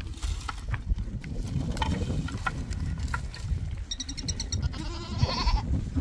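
A goat bleating, one wavering call about five seconds in, just after a quick run of high chirps.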